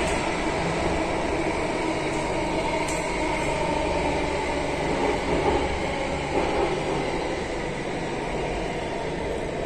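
Singapore MRT Circle Line train running between stations, heard inside the carriage: a steady rumble of wheels on rail with the cabin's ventilation hum, easing off gradually towards the end.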